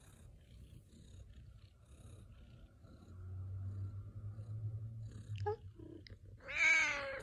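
Domestic cat purring, a low steady rumble through the middle, then a couple of short chirps and a louder meow near the end.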